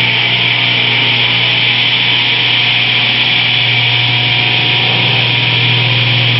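Old Craftsman belt-drive table saw running steadily, its electric motor humming and the belts and blade spinning at speed. The motor has a bad starting capacitor and one worn bearing still to be replaced.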